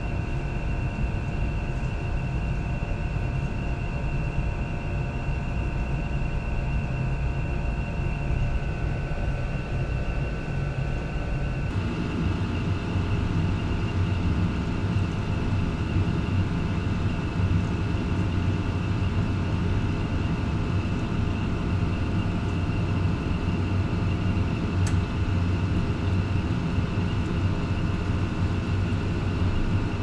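Energy Kinetics EK1 oil boiler with Carlin EZ1 burner running: a steady drone with a low rumble and a few faint steady tones, reading about 49 to 52 dB on a sound meter. The sound shifts slightly about twelve seconds in, when heard closer to the boiler.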